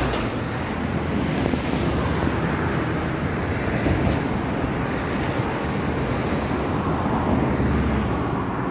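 Steady road traffic noise from a busy boulevard, with wind rumbling on the microphone.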